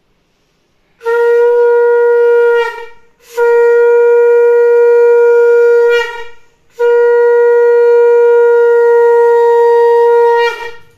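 Conch shell (shankha) blown three times in long, loud, steady blasts of one pitch, each sagging slightly in pitch as it dies away.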